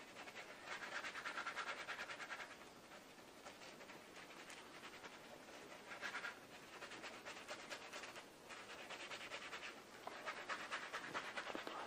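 Surgical scrub brush scrubbing soapy skin of the fingers, hands and forearms: faint, rapid scratching strokes in several bursts.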